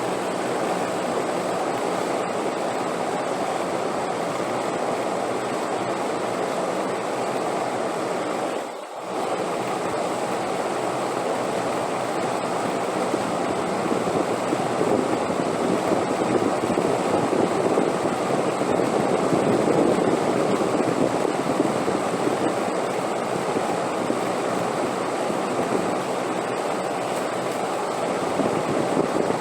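Steady wind noise, a continuous rushing hiss that swells louder partway through, with a brief dip about nine seconds in. A faint, steady high tone sits above it.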